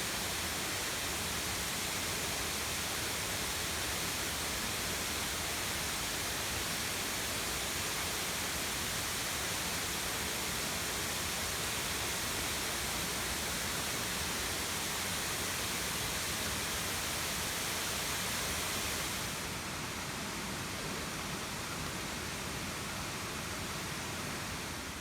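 Hunnasgiriya waterfall's falling water, a steady even rush that drops slightly in level about nineteen seconds in.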